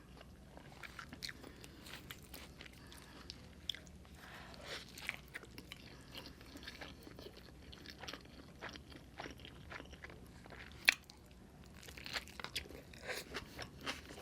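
Faint close-miked chewing and biting of a burrito with Impossible meat filling: soft wet mouth sounds and small crunches, with one sharp click about eleven seconds in.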